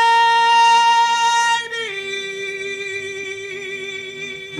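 Blues music for the dance, opening with a solo female voice: one long high held note, then a step down to a lower held note with a slight waver, breaking off sharply at the end.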